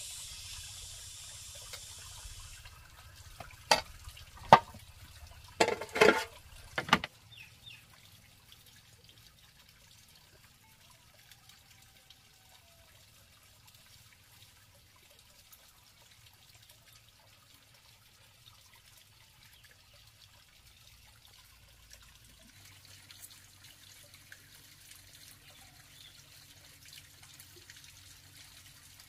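Water running for a couple of seconds, then a handful of sharp, loud knocks about four to seven seconds in. The rest is faint, with a light trickle and a low hum returning near the end.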